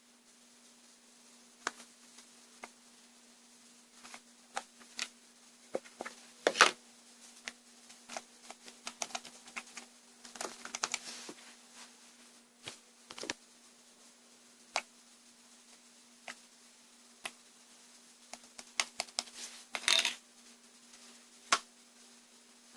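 Irregular light clicks and taps, a few louder knocks among them, with a faint steady hum underneath.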